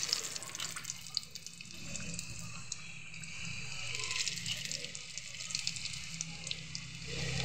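Onion samosas deep-frying in hot oil: a hiss of sizzling starts right at the start as they drop in, then keeps on steadily with many small crackles.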